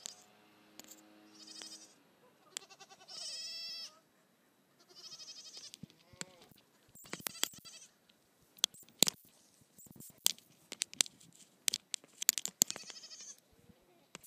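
Nigerian Dwarf goat kid bleating about five times, high and quavering, the longest and loudest bleat about three seconds in. From about seven seconds in there is a run of sharp clicks and knocks, which are the loudest sounds here.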